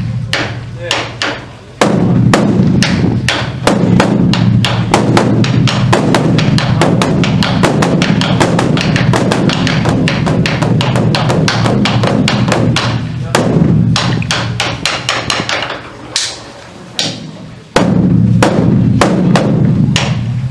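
Large Korean temple barrel drum (beopgo, the dharma drum) beaten rapidly with drumsticks: a dense run of strokes over a deep, ringing boom. The beating thins out briefly near the start and again about three-quarters of the way through, then comes back hard.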